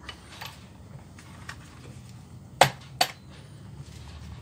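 Two sharp knocks about half a second apart, a little past the middle, as the plastic housing of an electric drill is tapped to seat its two halves in line. Lighter clicks and rattles of the drill being handled come before them.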